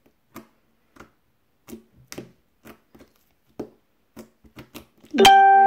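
Faint clicks and small pops of dried-out, hardened slime being poked and pressed with fingertips. About five seconds in, a loud notification chime sounds: one plucked-sounding tone that starts suddenly, holds and fades out.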